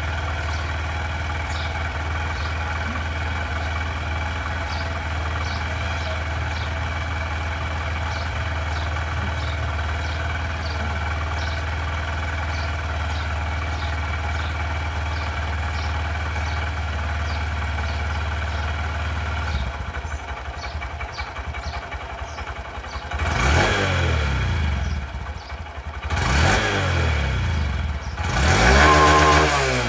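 Stock Honda SP 125 BS6 single-cylinder engine and exhaust idling steadily for most of the time, then revved three times near the end, the pitch rising and falling with each blip of the throttle.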